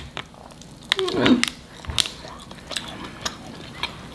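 Close mouth sounds of people biting and chewing gummy hot-dog candy: scattered sharp clicks and smacks. A short hummed vocal sound falls in pitch about a second in.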